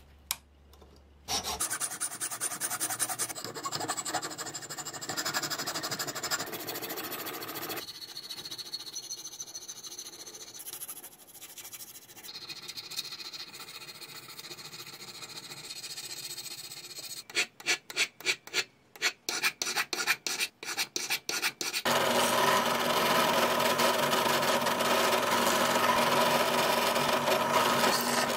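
Hand filing and sanding on toy car parts, cut together as several short stretches of rubbing. In the middle comes a run of separate back-and-forth strokes at about two or three a second, and after it a louder, continuous rubbing.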